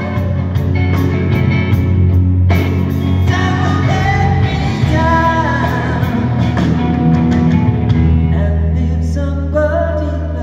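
Live rock band playing through a PA: singing over guitars and drums.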